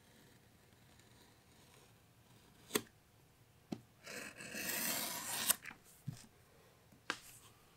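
Snap-off utility knife slicing through holster leather in one scraping cut of about a second and a half, ending in a sharp click as the blade comes through. A few clicks and light taps come before and after it.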